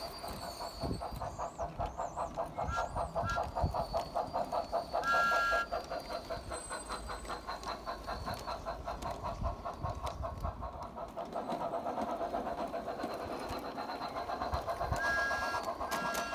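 Garden-railway model steam engine running with a rapid, steady rhythmic chuff from its sound unit, giving short two-tone whistle toots: two quick ones near the start, a longer one about five seconds in, and two more near the end. A bird chirps faintly early on.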